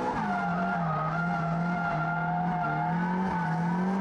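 Nissan Silvia S15 drift car's engine, heard from inside the cabin, held at high revs through a drift with the tyres squealing; the engine note drops just after the start, holds steady, and climbs again near the end.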